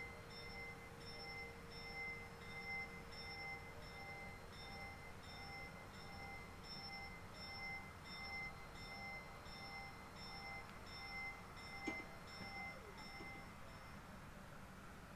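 Italian railway level-crossing warning bell ringing in a steady repeating rhythm while the barriers come down, falling silent near the end once they are lowered. A single sharp knock sounds shortly before it stops.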